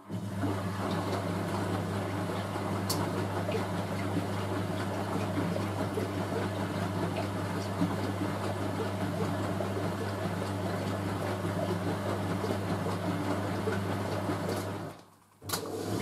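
Hoover A3060 front-loading washing machine running with a steady low hum as its drum speeds up toward a spin. The sound starts suddenly and cuts off abruptly about 15 seconds in.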